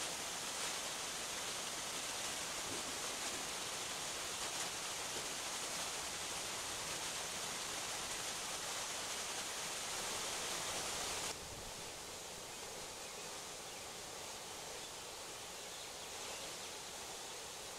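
Water pouring over the top of a beaver dam, a steady rushing hiss. About eleven seconds in it cuts off abruptly to a quieter, fainter steady hiss.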